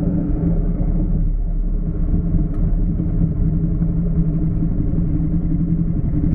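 Off-road vehicle engine running at a steady pitch, most likely a side-by-side or ATV under way.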